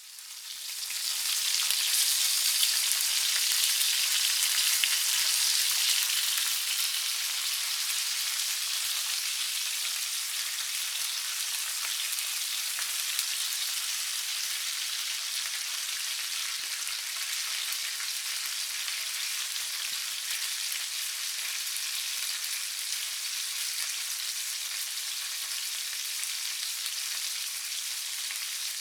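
Sausages frying, a steady sizzle. It swells in over the first two seconds, is loudest for the next few, then settles slightly quieter and holds steady.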